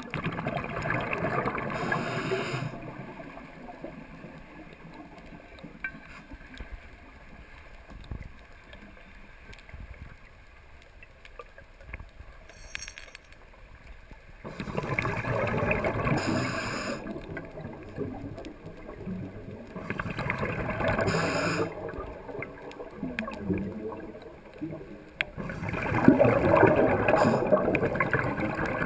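Scuba regulator breathing underwater: four loud bursts of exhaled bubbles, a couple of seconds each, with quieter stretches between.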